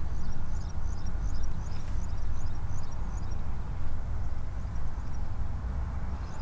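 Wind buffeting the microphone as a low, unsteady rumble, with faint bird chirps repeating high above it.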